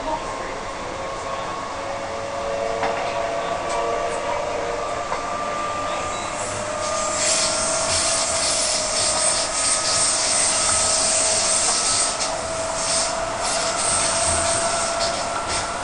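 Electric suburban train heard from inside the carriage, its traction motors whining in several tones that slowly rise in pitch as it gathers speed. From about seven seconds in, a loud rushing hiss of wheels on rail builds over the whine.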